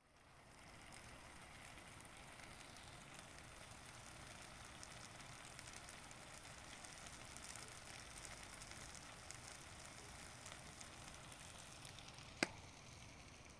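Food frying in a pan, a faint steady sizzle with fine crackling, and one sharp click near the end.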